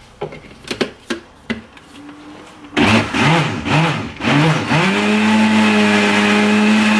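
Countertop blender: a few knocks as the jar is filled and lidded, then the motor starts about three seconds in. Its pitch surges up and down several times as it takes up the thick chocolate batter, then settles into a steady run.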